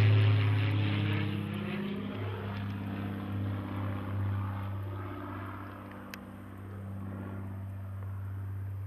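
Airplane engine droning steadily overhead, gradually fading away. A single faint click about six seconds in.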